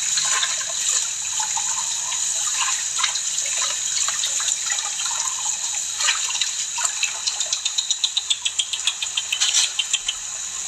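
Tap water running steadily into a sink during dishwashing, with scattered light clicks and, from about seven seconds in, a quick regular series of short clicks.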